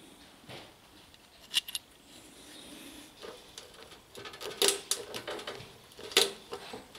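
Hand pop-rivet gun at work on galvanised sheet steel: a few separate sharp metallic clicks with quiet between them, as a rivet is loaded and the handles are squeezed to set it.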